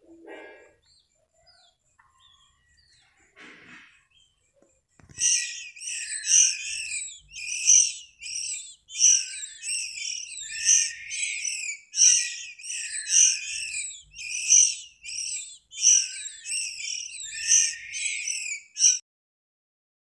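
A bird calling: faint scattered chirps, then from about five seconds in a loud, high chirping phrase repeated about eleven times, roughly once every second and a half, stopping abruptly near the end.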